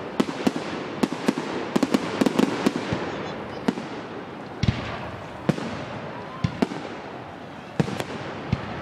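Fireworks display: aerial shells bursting in a quick, irregular string of sharp bangs over a continuous crackle and hiss, thickest in the first three seconds. One heavier boom with a low rumble comes about halfway through.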